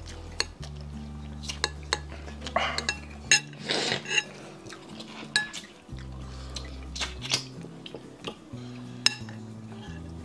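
A metal fork clinking and scraping against a ceramic soup bowl, with a string of sharp clinks. Quiet background music with a stepping bass line plays underneath.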